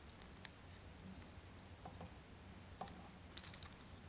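Faint, scattered clicks and ticks of plastic parts on a Takara Tomy Masterpiece MP-20 Wheeljack transforming figure as its pieces are handled and moved, over a low steady hum.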